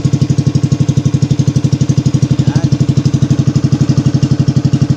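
Small inboard engine of a motorized outrigger boat (bangka) running at a steady, even speed with a rapid putt-putt beat, driving the boat along.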